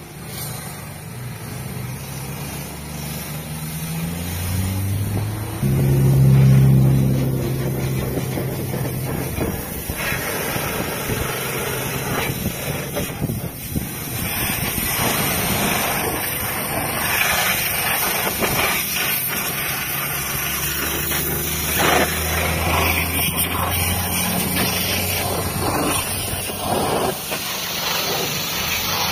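Pressure washer running: its pump motor hums, rising in pitch over the first few seconds and loudest about six seconds in. From about ten seconds in the high-pressure water jet hisses and spatters against a car's bumper, wheel and the wet ground.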